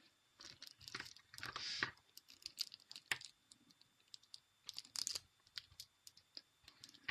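Faint scattered clicks, taps and brief scraping from handling a glue stick and small plastic slime-making containers.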